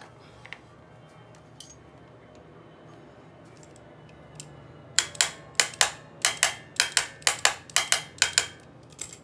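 A hand wrench working the clutch bolt on a small two-stroke engine: a few faint handling clicks, then about halfway through a run of sharp, ringing metallic clicks, mostly in quick pairs about twice a second.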